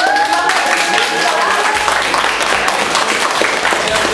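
A small group applauding, with many hands clapping quickly. A single held tone rides over the clapping for about the first second and a half.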